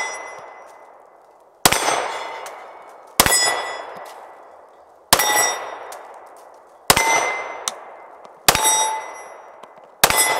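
Six shots from a Girsan MC9T 9mm pistol at an even pace, about one every one and a half to two seconds. Each shot is followed by the clang and fading ring of a hit steel plate target.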